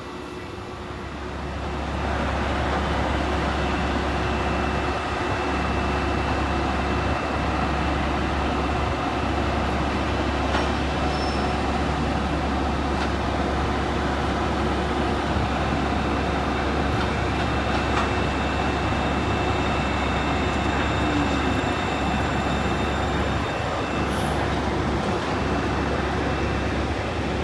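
Train running past on the track: a steady rumble and rolling noise that builds over the first two seconds and then holds evenly.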